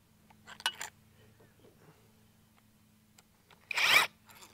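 A cordless drill with a 4 mm Allen bit briefly spins a bolt on an ARB dual air compressor, one short burst about three and a half seconds in. A few light clicks come in the first second, and a steady low hum runs underneath.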